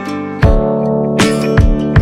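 Background music: strummed acoustic guitar with a steady beat, the chord changing about half a second in.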